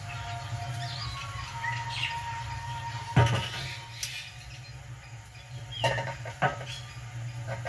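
Birds chirping over a steady low hum, with a few sharp knocks: one about three seconds in and two close together near six seconds.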